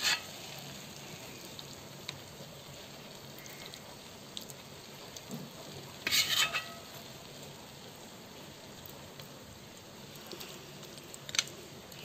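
Chicken roast masala sizzling faintly in a metal pot, with a few clicks and scrapes of a spoon against the pot. The loudest scrape comes about six seconds in.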